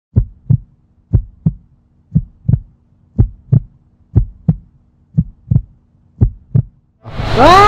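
Heartbeat sound effect: seven slow double thumps, lub-dub, about one beat a second. About seven seconds in, a loud whoosh sweeps in, rising and then falling in pitch.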